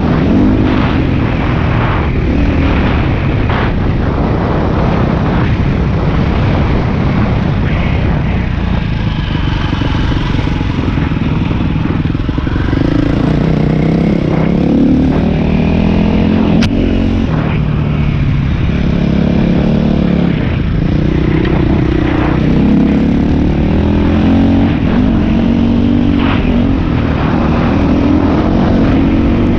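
Dirt bike engine running while being ridden on a trail, its pitch rising and falling with the throttle, with one sharp click about halfway through.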